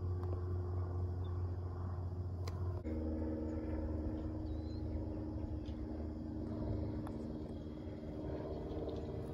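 Steady low hum of a distant engine carrying a few steady tones, which change pitch about three seconds in. Two faint clicks of a putter striking a golf ball, one before and one after the change.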